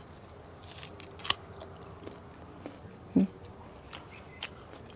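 A person chewing a bite of crunchy fresh guava: scattered crisp crunches and mouth clicks.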